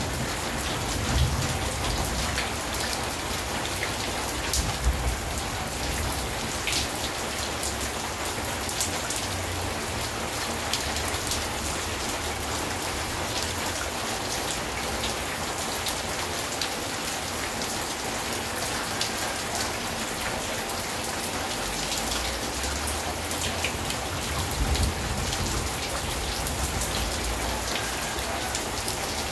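Steady rain falling on corrugated metal roofing and a wet concrete yard, with scattered sharper drop splashes in the even hiss.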